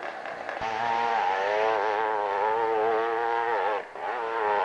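Motorcycle engine running hard under load as it climbs a steep hill, its pitch wavering up and down. It comes in about half a second in and breaks off briefly near the end before picking up again.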